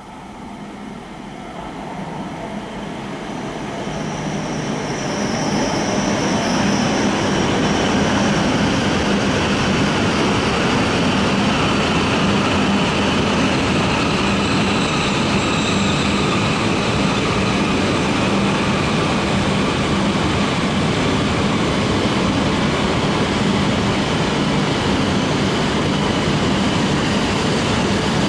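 A Shinkansen bullet train (E5-type set) pulling into the station. It grows louder over the first six seconds, then holds a steady heavy rumble with a low hum as it rolls slowly along the platform.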